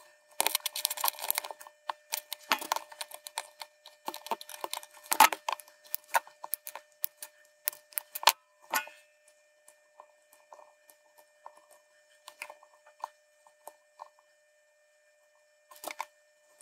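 Hands handling a small circuit board fitted with through-hole LEDs, the thin metal LED leads clicking, scraping and rattling. The clicks come thick for the first several seconds, thin out to scattered ticks after about nine seconds, and cluster again briefly near the end.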